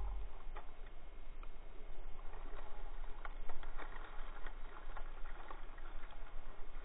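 Dry leaves and twigs crackling and snapping as a hand reaches into a brush pile and pushes through the branches, many scattered sharp clicks over a low steady rumble.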